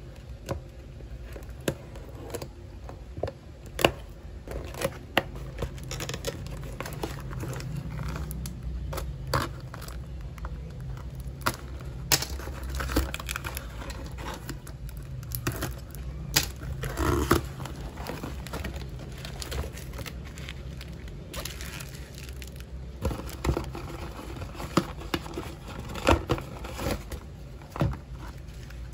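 A cardboard parcel being opened by hand: a box cutter slicing through packing tape and the cardboard flaps tearing, scraping and rustling, with many scattered clicks. Near the end, plastic packaging and bubble wrap crinkle as the contents are lifted out.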